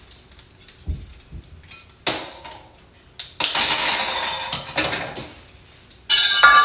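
Kitchen handling noises as groceries are unpacked: a few soft knocks, then rustling and clattering as items are moved about. A louder clatter comes near the end.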